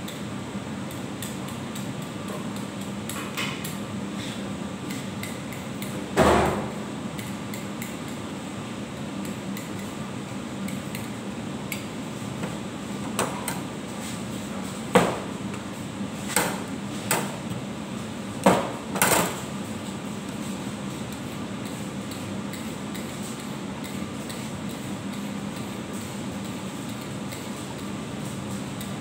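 Cleaver chopping carrots on a wooden cutting board: one loud knock about six seconds in, then a run of about six sharp chops a few seconds apart, over a steady background hum.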